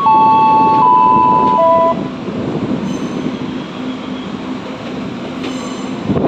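Tokyu 8500 series electric train's electric horn sounding a short tune of two tones at a time stepping between pitches, ending about two seconds in. The train's running rumble continues underneath and after it.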